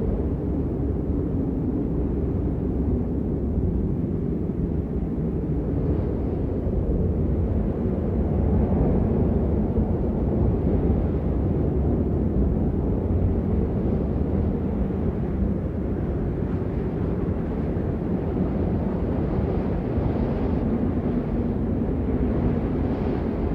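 Strong wind blowing, a steady low rumbling noise that swells slightly about eight to eleven seconds in.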